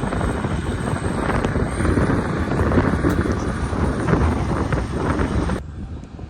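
Heavy diesel construction machine running close by, a loud rumble mixed with wind on the microphone. About five and a half seconds in it cuts off abruptly to a much quieter hum.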